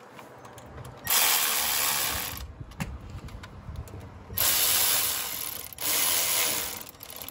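Cordless electric ratchet running in three short bursts, driving the screw of a worm-drive hose clamp to tighten the air intake tube onto a throttle body. The first run comes about a second in, the other two close together in the second half.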